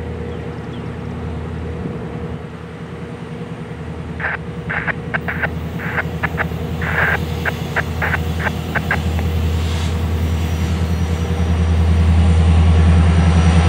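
Diesel engines of an approaching EMD SD70ACU and GE Dash 9-44CW locomotive consist hauling tank cars: a steady low drone that grows louder from about nine seconds in as the locomotives near. A run of short high-pitched squeaks comes between about four and nine seconds in.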